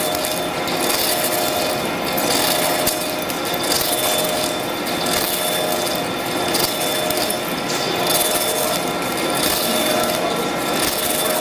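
Heavy-duty face lathe turning a large metal rotor shaft, its cutting tool taking a cut across the flange face: a steady mechanical machining noise with a few faint steady whines and light crackling over it.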